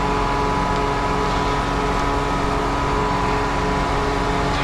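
John Deere 8RX 410 tracked tractor's engine running steadily at idle, a constant low hum with a steady higher whine over it.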